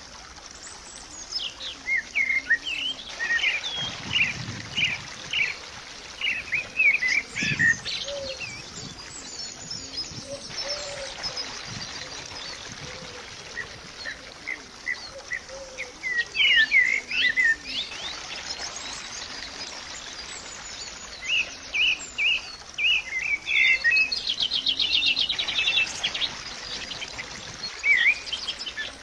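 Small songbirds chirping and singing in quick short notes over a steady background hiss, with a fast trill near the end.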